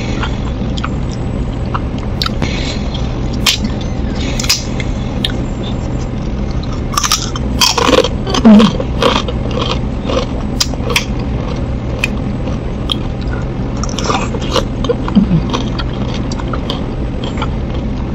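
Close-miked eating sounds from a person eating rice and vegetable curry: wet chewing and mouth smacks with sharp clicks of a metal spoon against the dish. It gets louder and busier about halfway through, over a steady low background hum.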